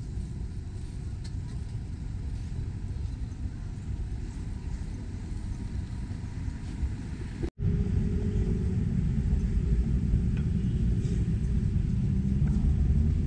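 Low, steady rumble of motor traffic. It cuts out abruptly for an instant about seven and a half seconds in and comes back louder.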